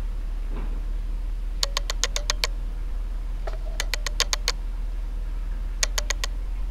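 Three quick runs of sharp clicks, about seven or eight a second, over a steady low electrical hum.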